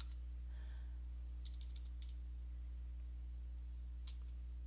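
Computer keyboard keys being typed: faint clicks at the start, a quick run of keystrokes about a second and a half in, and another click near the end, over a steady low hum.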